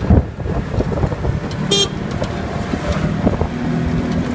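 Auto-rickshaw engine and road noise while riding, with a single short, high horn toot just under two seconds in.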